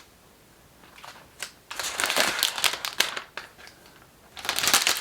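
Crinkling of packaging being handled, in two stretches: from about two seconds in for a second and a half, and again near the end.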